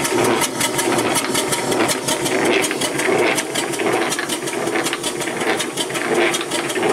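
Scratch-built four-cylinder slide-valve model steam engine running on compressed air, its exhaust beating in a fast, even rhythm. Each turn gives four exhaust beats, two of them so close together that it sounds like three.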